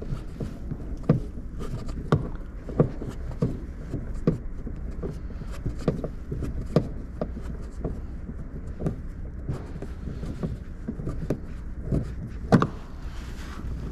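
A screwdriver and hands working at the plastic door-handle recess of a Citroën C4's rear door trim, undoing a Torx screw. Irregular light clicks and knocks, with one louder knock near the end, over a steady low hum.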